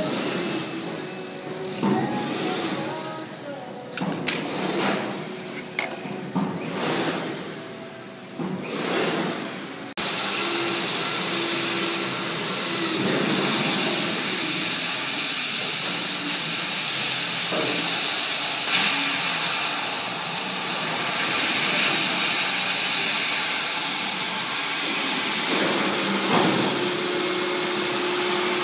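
CO2 laser engraving and cutting machine at work: for the first ten seconds a sweeping whir rises and falls about every two seconds as the laser head passes back and forth over the work. About ten seconds in, a loud steady rushing hiss of the machine's air blower sets in suddenly and carries on.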